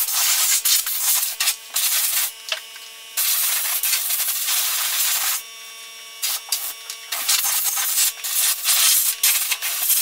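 Compressed air hissing from an air-compressor blow gun in repeated blasts, some under a second and some a couple of seconds long, as dust is blown out from under a refrigerator around its condenser coil. A faint steady hum runs underneath.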